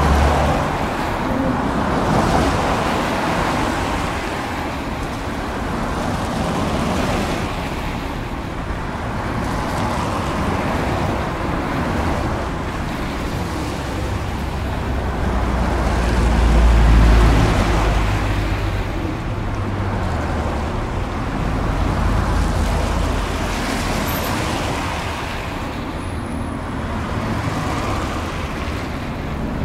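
Street traffic noise heard from a rooftop, a continuous wash of passing vehicles swelling and fading every few seconds. A deeper rumble builds a little past halfway and then eases off.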